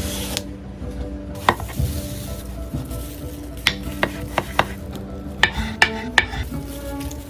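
A string of sharp clicks and light clatters over a steady hiss, with steady low hum-like tones underneath.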